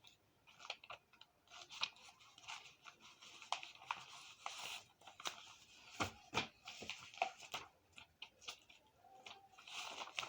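Product packaging being handled and opened by hand: irregular rustling and crinkling of wrapping and boxes, with scattered light clicks and taps, the loudest about six seconds in.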